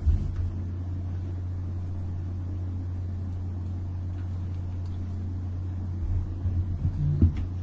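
Steady low electrical or room hum, with a few short knocks at the start and again about six to seven seconds in.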